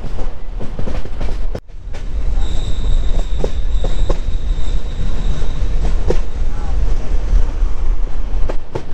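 Passenger train running on the rails, heard from inside a coach: a heavy steady rumble with scattered wheel clicks. Near the start it briefly cuts out. A thin, high, steady whine then sounds for about three seconds, like wheel squeal.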